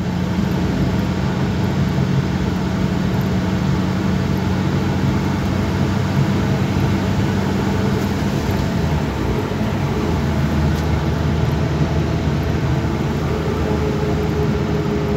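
Steady air roar heard inside a moving car's cabin, which the driver likens to an aeroplane and says grows with speed. He blames foam seals around the radiator that came loose when the engine bay was pressure-washed. Under the hiss a low engine hum runs steadily and drops in pitch about eight or nine seconds in.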